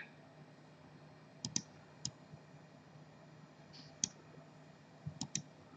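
Scattered computer mouse clicks, about six, some in quick pairs, over a faint steady hum.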